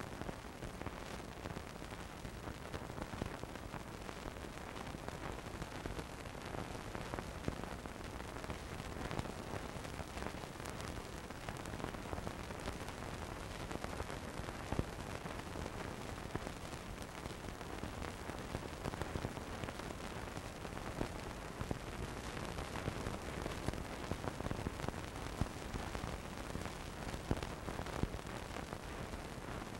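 Steady hiss with scattered crackles and pops, the noise of an old film transfer with no other sound on it.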